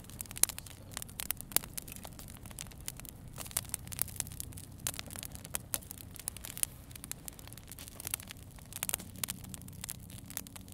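Wood campfire crackling: irregular sharp pops and snaps, several a second, over a steady low background.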